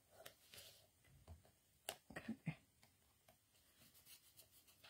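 Quiet, scattered rustles and light taps of cardstock being handled: fingers pressing a strip of tear tape down onto a card panel and sliding the card round on a craft mat.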